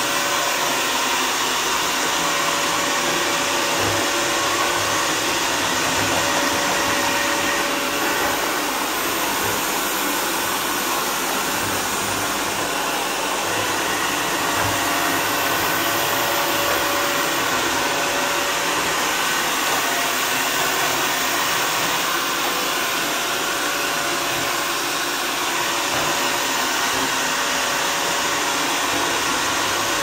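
Xiaomi Mi Robot Vacuum Mop 2S robot vacuum running across a tiled floor, its suction fan making a steady rushing noise with a faint steady hum.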